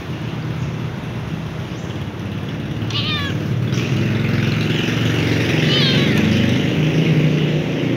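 Kitten meowing twice, short high calls falling in pitch about three and six seconds in, over a steady low rumble.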